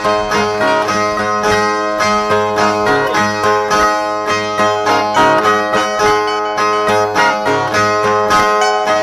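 Two Brazilian violas played together as an instrumental interlude between sung verses: plucked steel strings in a steady, regular rhythm.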